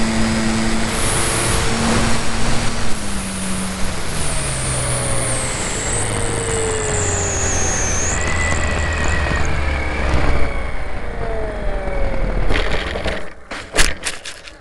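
Motor noise over a steady rush, its pitch falling in steps over several seconds, with a high whine that slides down. A few sharp clicks come near the end.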